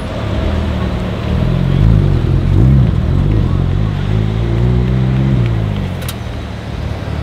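Gemballa-tuned Porsche 997 Turbo's twin-turbo flat-six revving and pulling away: a quick rev about two and a half seconds in, then the engine note rising as the car accelerates, dropping away near the end. A sharp click about six seconds in.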